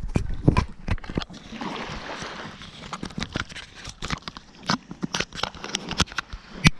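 Irregular crunches and clicks from a hand-held action camera being handled while someone walks on a sandy, gritty beach, with a couple of heavier thumps right at the start.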